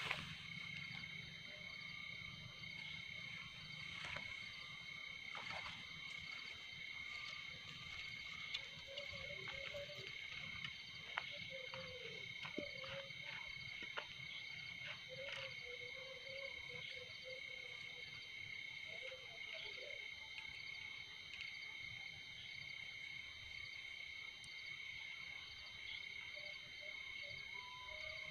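Night chorus of insects: a steady high-pitched trilling throughout. Frogs croak faintly now and then, mostly through the middle stretch, and there are a few light clicks.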